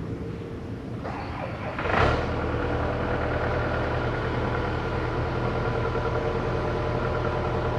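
A machine engine running steadily, picking up about two seconds in and then holding an even low hum.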